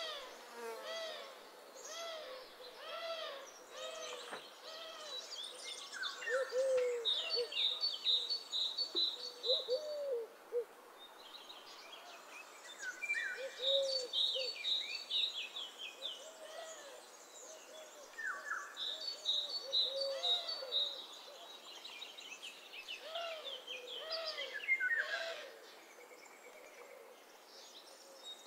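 Birds calling: many short, low hooting notes overlapping and repeating, with several bursts of a fast, high trill and scattered chirps.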